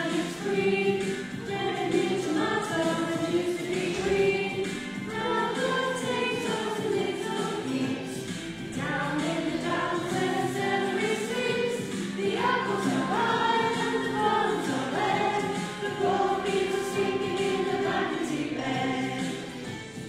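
A congregation singing a harvest song together, with musical accompaniment.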